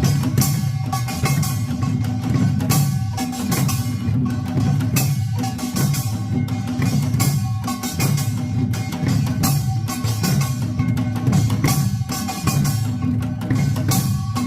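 Korean buk barrel drum played in a Yeongnam nongak rhythm: a steady run of deep drum strokes mixed with sharp, crisp strikes.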